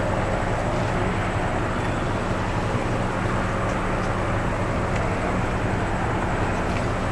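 Steady street traffic noise with a low, even hum.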